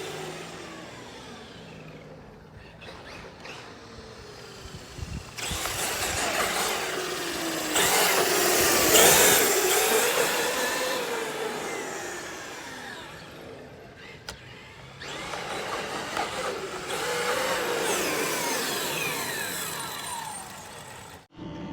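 Electric RC car motor whining, its pitch rising and falling as the car speeds up and slows, over the rush of its tyres. It is loudest twice, about a third of the way in and again later, and dies away in between.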